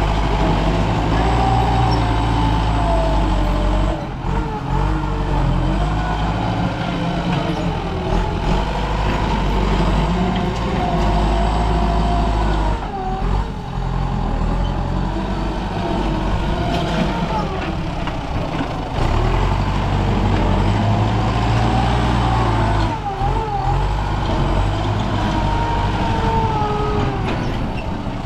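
Excavator's diesel engine running steadily under load, with a wavering hydraulic whine that rises and falls as the machine works; the engine note drops briefly three times.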